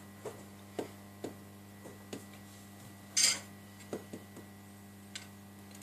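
Light clicks and taps of small metal hand tools against a phone's metal frame during disassembly, with one louder, sharp clatter about three seconds in, over a faint steady hum.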